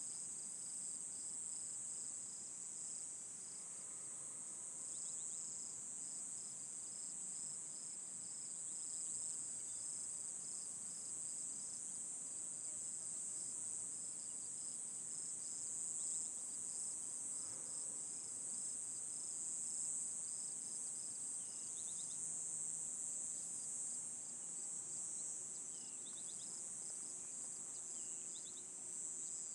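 Steady high-pitched insect chorus of crickets, with another insect trilling in rapid even pulses just below it, and a few faint short bird chirps in the later part.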